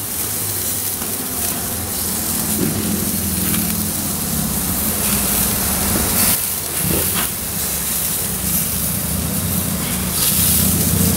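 Gas grill running hot with a flank steak on the grate: a steady hiss over a low hum.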